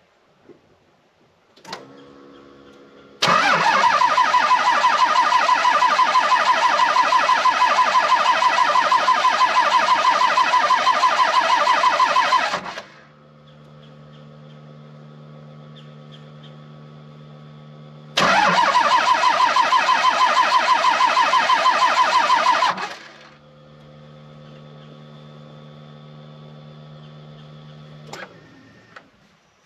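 12-valve Cummins diesel cranked on the starter twice, a long pulsing crank of about nine seconds and then a shorter one of about five, each cut off without the engine catching. This is the winter hard start that the owner suspects comes from the injection pump or injectors. Between the cranks a faint steady hum runs, switched on and off with a click.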